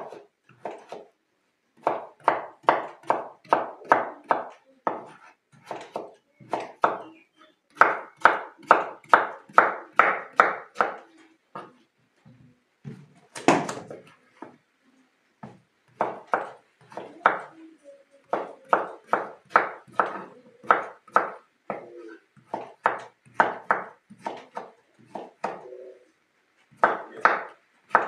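Kitchen knife chopping calabacitas (zucchini) into cubes on a wooden cutting board: quick blade knocks, about three a second, in runs with short pauses between them, and one louder knock about halfway through.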